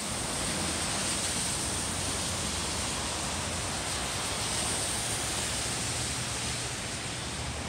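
Steady rushing of fast brown floodwater pouring through a drainage channel: the storm drainage carrying heavy runoff at full flow.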